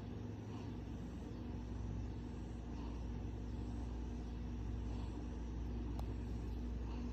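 Steady low mechanical hum with a constant tone in it, and a single sharp click about six seconds in.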